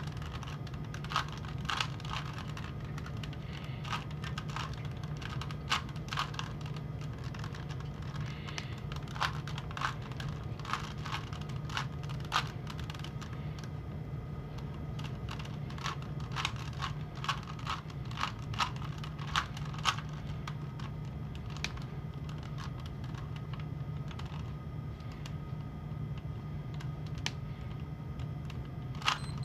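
A Rubik's cube being twisted by hand during a fast solve: irregular plastic clicks of the layers turning, in quick runs with short pauses. A steady low hum runs underneath.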